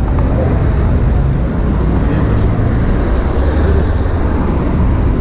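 Passing road traffic: a steady low rumble.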